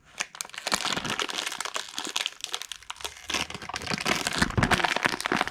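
Crinkly packaging being handled and pulled apart as a speed cube's box is worked free: steady irregular crinkling, rustling and crackling.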